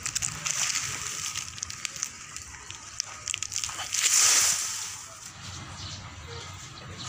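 Dry coconut fronds and fallen leaves rustling and crackling, with a louder rustle about four seconds in.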